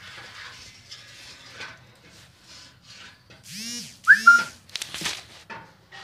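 Caged budgerigars chattering, with two loud rising-and-falling calls about halfway through, a short whistled note, and another loud call near the end.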